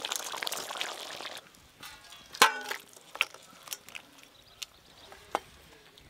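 Fish curry bubbling at the boil in an aluminium wok, a crackly simmer that cuts off after about a second. Then a single ringing metal clank and a few light taps and clicks as the wok is tipped and the curry is emptied into a steel bowl.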